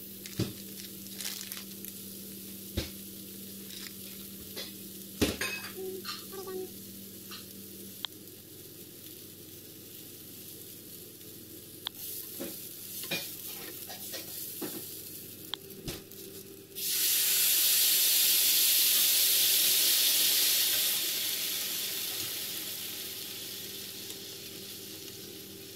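Rice frying in a nonstick pan, stirred and scraped with a wooden spatula, with scattered light clicks. About 17 seconds in, liquid poured into the hot pan sets off a sudden loud sizzle that slowly dies down.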